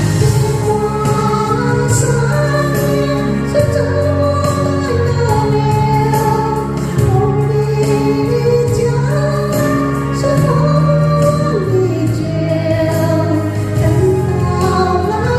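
Chinese pop ballad playing, with a woman singing the melody over a backing track with steady bass notes.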